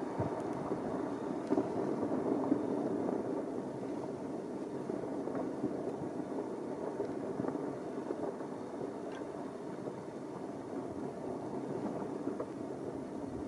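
Basaltic lava fountain erupting from a vent: a steady low rushing noise of gas and lava jetting out, with a few faint crackles.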